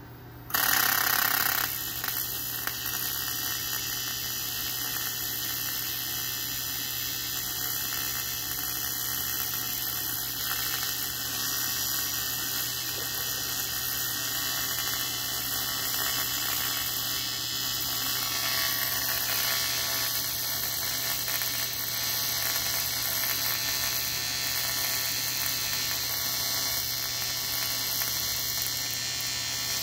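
AC TIG welding arc on aluminum buzzing steadily. The arc strikes about half a second in, loudest for the first second, then settles into an even buzz with hiss.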